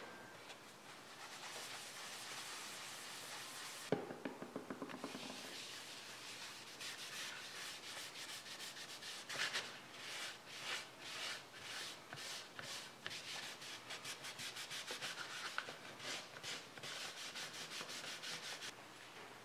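Wadded paper towel rubbed back and forth over coffee-dyed leather on a wooden tabletop, in quick repeated scratchy strokes. A sharp knock about four seconds in is followed by a brief run of rapid ticks, and the rubbing stops shortly before the end.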